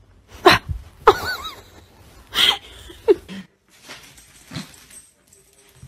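Short, sharp cries from a young pet animal, about five of them spread over four and a half seconds, the last one fainter.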